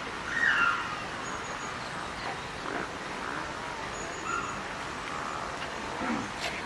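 Birds calling over a soft steady hiss from a steam locomotive's escaping steam, with one louder call about half a second in.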